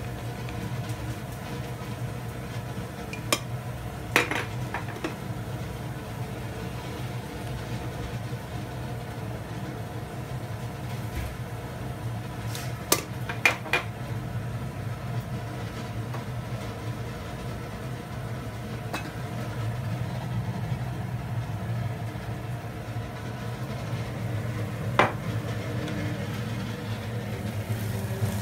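A spoon stirring sugar, salt and cornstarch into water in a small stainless steel bowl, with a few sharp metallic clinks spread through the stirring. A steady low hum runs underneath.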